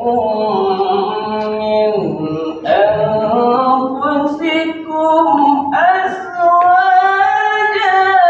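A man reciting the Quran unaccompanied in the melodic tilawah style, holding long drawn-out notes that bend and glide in pitch. He breaks briefly for breath about two and a half seconds in and again just before six seconds.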